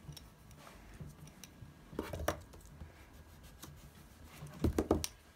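Handling sounds of drawing tools on paper: a knock about two seconds in and a quick cluster of knocks and rubs near the end, as a mechanical pencil is set down and hands work the sheet.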